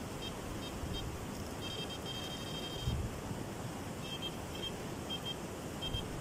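Electronic carp bite alarm beeping in short, irregular runs of quick beeps, with one longer run about two seconds in, over a steady outdoor hiss.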